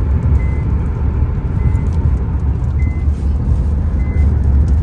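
Steady low rumble of road and engine noise inside a car's cabin at highway speed, with a faint short beep repeating about once a second.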